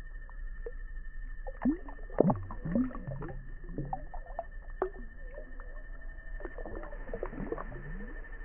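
Water sloshing and gurgling as a hand releases a bass back into a pond, loudest from about one and a half to four seconds in and again near the end, over a steady faint high whine.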